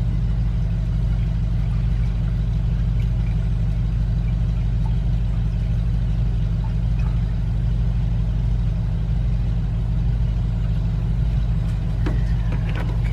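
Steady low hum of an idling engine, with a few light metallic clicks near the end.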